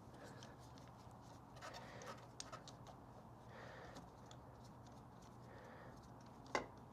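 Faint scattered clicks and taps of hand tools and parts being handled during motorcycle work, with one sharper click near the end.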